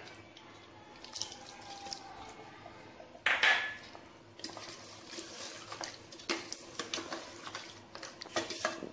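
Metal ladle stirring thick mutton korma gravy in a stainless steel pot, with many quick clinks and scrapes against the pot in the second half. A short louder noise comes a little over three seconds in.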